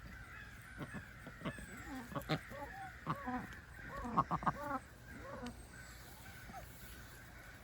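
Domestic waterfowl of the backyard flock calling: a string of short pitched calls starting about a second in, bunching into a quick run of four near the middle and stopping a little past halfway.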